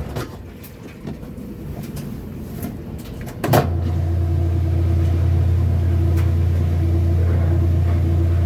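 Kenmore washing machine motor humming under a heavy load. The hum cuts out at the start, comes back with a sharp click about three and a half seconds in, and then runs steadily.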